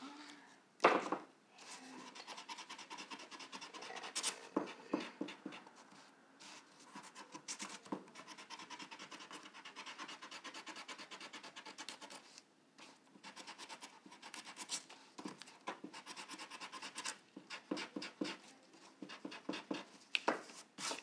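Pencil eraser rubbing quickly back and forth over paper cut-out letters, erasing pencil lines, in a long run of fine scratchy strokes. A sharp tap about a second in.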